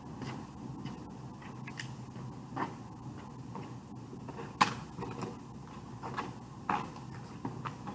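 Scattered knocks and clicks from a Nerf blaster game, the sharpest a little past halfway, over a steady low hum.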